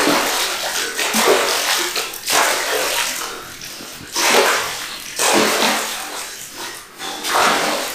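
A man huffing and gasping hard in icy spring water, a heavy breath roughly once a second: his breathing is in cold shock.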